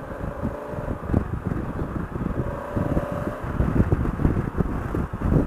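Riding wind buffeting the microphone in uneven gusts, over the running engine of a Honda Africa Twin CRF1000L, a 998 cc parallel-twin, at riding speed.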